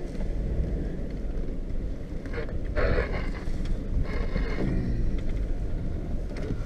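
Pickup truck driving slowly on a dirt road, heard from inside the cab: a steady low engine and road rumble with wind noise, and a few brief louder noises about three and four seconds in.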